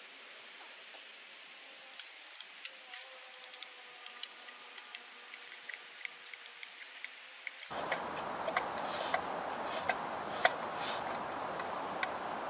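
Chopsticks clicking and scraping against a metal mess tin as the last of the food is shovelled out, in quick irregular taps. About two-thirds of the way through, a steady hiss rises abruptly behind the taps.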